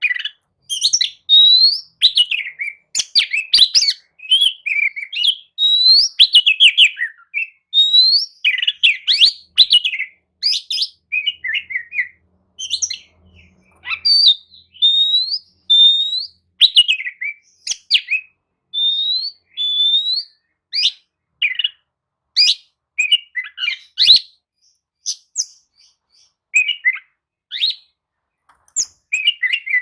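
Oriental magpie-robin singing a loud, varied song: quick phrases of rising whistled notes mixed with harsh chirps and clicks, broken by short pauses.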